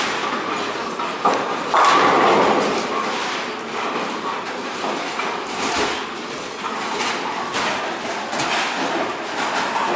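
Bowling ball rolling down a wooden lane and crashing into the pins about two seconds in, then scattered knocks and clatter from the alley.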